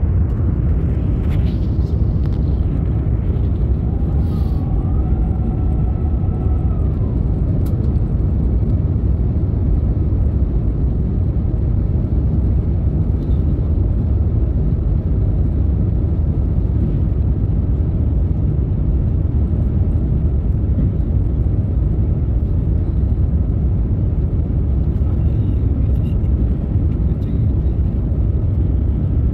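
Steady low rumble of an Airbus A350-900 airliner's Rolls-Royce Trent XWB engines and airflow during the descent to land. A faint two-tone whine sounds for about three seconds, starting about four seconds in.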